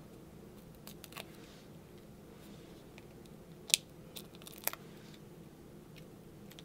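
Backing paper being peeled off small foam adhesive squares: a few light paper clicks about a second in, then a sharp snap a little before four seconds and two more crinkling clicks within the next second, over a low steady room hum.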